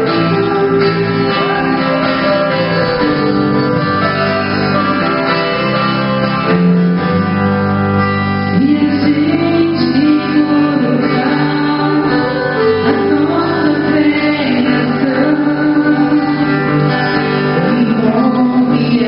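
Live Christian worship song: acoustic guitar chords with a voice singing a slow melody over them.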